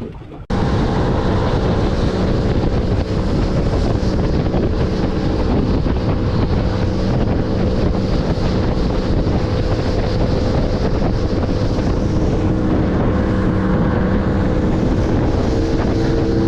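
Boat's outboard motor running with the boat under way, and wind rushing over the microphone. It starts suddenly about half a second in and holds steady.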